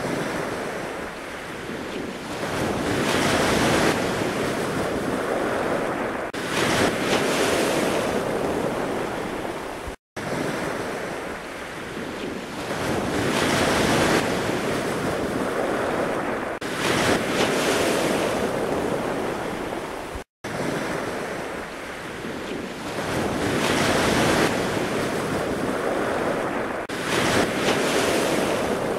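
Ocean surf washing in: a looped recording that swells twice in each pass and repeats about every ten seconds, with a brief dropout at each join.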